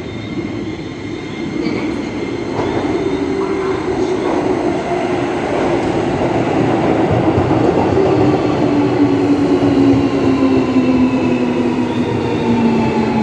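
A Keio Line electric train running at the platform with wheel and rail rumble. Its motors give a whine that falls slowly in pitch over the second half, as it slows.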